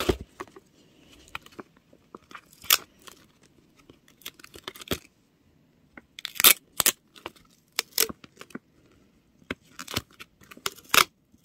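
Clear adhesive tape pulled off its roll in a series of short, sharp rips and pressed down over a printed paper squishy template, with paper handling in between.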